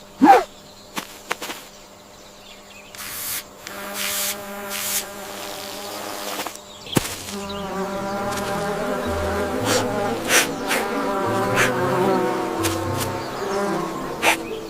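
Buzzing insect sound effect with a steady pitch stack, over background music whose bass line comes in about halfway through.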